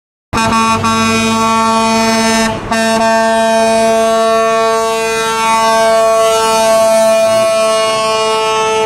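Truck air horn sounding one long, loud blast with a short break about two and a half seconds in, then cutting off abruptly.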